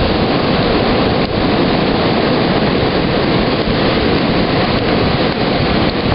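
Ocean surf breaking on a reef-fringed beach, mixed with wind buffeting the microphone: a loud, steady rushing noise with an uneven low rumble.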